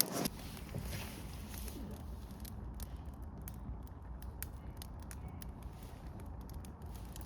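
Freshly lit charcoal burning in a camping grill: scattered sharp crackles and pops over a steady low rumble.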